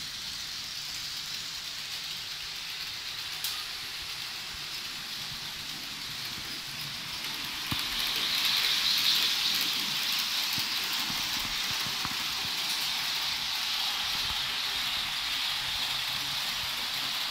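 Model trains running on the layout: a steady hissing whir of small motors and wheels on the rails, louder from about eight seconds in.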